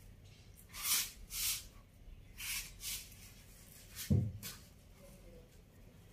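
Faint scuffing and scraping as a puppy mouths and tugs at a rubber clog on a tiled floor, a few short rasps in the first three seconds, then a dull thump about four seconds in.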